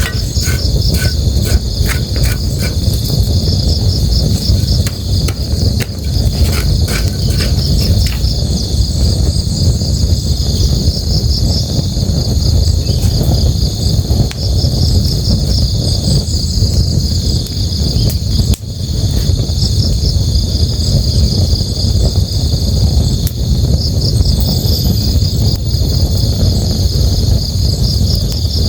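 Night ambience of crickets chirping in rapid pulsed trills over the steady low rush of a river. Sharp campfire crackles pop now and then, mostly in the first eight seconds.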